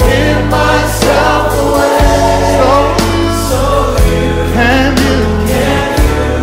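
Gospel music: voices singing a wavering melody over held bass notes and a steady beat.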